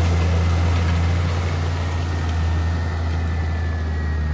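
Engine running steadily with a deep, even hum and a faint high whine above it.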